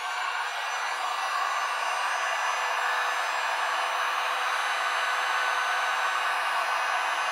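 Electric heat gun blowing steadily over a wet resin pour, a constant rush of air from its fan with a faint steady whine.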